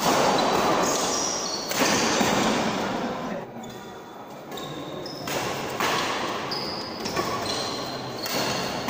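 Badminton doubles rally in a large indoor hall: rackets striking the shuttlecock in sharp hits, with shoes squeaking in short high chirps on the court between them.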